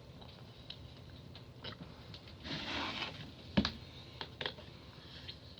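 Quiet eating sounds: scattered light clicks and taps of a utensil on a food tray, a short scrape about two and a half seconds in, and one sharper click a second later.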